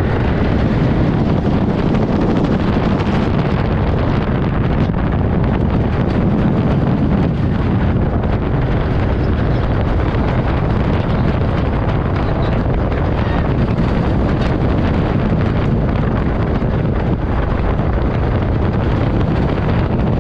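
CCI wooden roller coaster train running at speed over wooden track, a steady loud rumble with rattling clatter from the wheels and structure, and wind buffeting the microphone.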